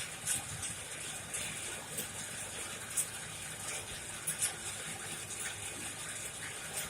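Coal forge fire burning hard with a steady rushing hiss, broken by a few sharp crackles and pops.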